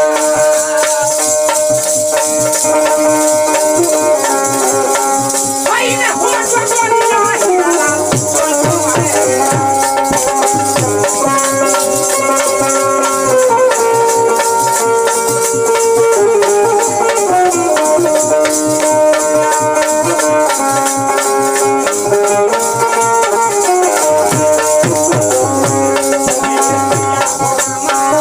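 Indian folk ensemble playing: a bulbul tarang plucks the melody over regular dholak drum strokes and the steady jingling rattle of hand-held kartal clappers.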